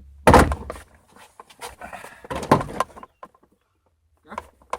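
Plastic door trim panel being pulled off a car door by hand. Its retaining clips pop loose with a sharp crack about a third of a second in, and the panel creaks and scrapes after it.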